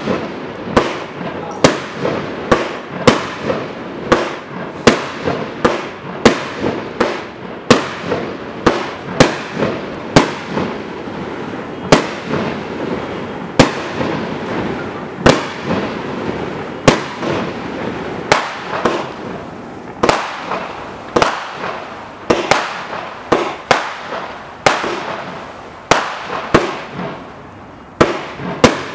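Gemstone Fireworks Eclipse, a 32-shot firework cake with 20/30 mm tubes, firing shot after shot at a steady pace: sharp, loud bangs of shells launching and bursting, a little more than one a second. The bangs briefly let up near the end before firing resumes.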